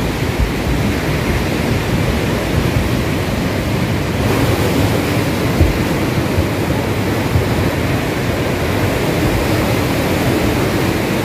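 Loud, steady rushing of the Ganga in flood, a fast, silt-laden mountain river churning over rocks; the hiss grows brighter about four seconds in.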